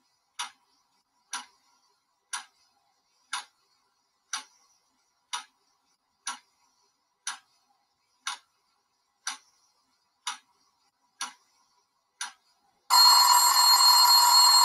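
Countdown timer ticking once a second, then its alarm going off loudly for under two seconds as it reaches zero near the end.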